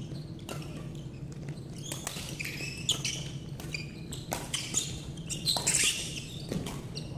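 Badminton rally: rackets striking the shuttlecock with sharp clicks, and players' shoes squeaking and tapping on the wooden court floor.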